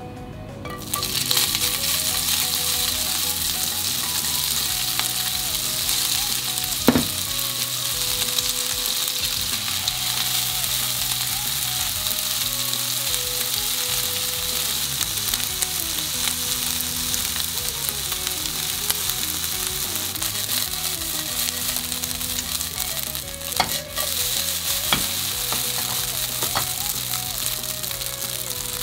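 Yakisoba noodles, still wet from being rinsed, sizzling steadily in hot sesame oil in a frying pan; the sizzle starts about a second in as the noodles go into the oil. A couple of short knocks about a quarter and three quarters of the way through.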